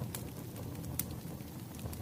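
Wood fire crackling: a steady low rumble of burning logs with scattered sharp pops, the loudest about a second in.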